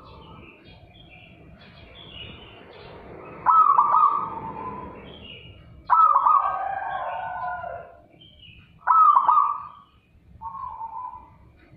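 Caged zebra dove (perkutut) singing: four loud rolling coo phrases, each starting abruptly and lasting one to two seconds, about every three seconds, the last one shorter and fainter. Faint high chirping runs underneath.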